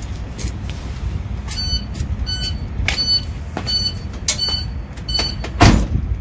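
A truck's hazard-light flasher beeping in the cab, a short click-and-beep repeating about every 0.7 seconds, over a low rumble. Near the end comes a single loud thump.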